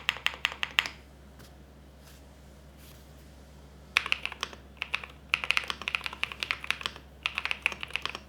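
Typing on a gasket-mounted mechanical keyboard with Akko Cream Blue tactile switches, short quick runs of keystrokes. The typing stops for about three seconds about a second in, then resumes in bursts.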